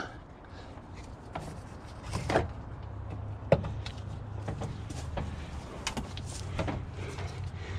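Scattered light clicks and knocks of parts and fittings being handled by hand in a UTV engine bay during reassembly, over a low steady hum.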